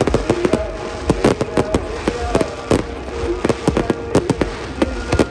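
Fireworks going off in a rapid, irregular volley of sharp bangs and crackles, several a second.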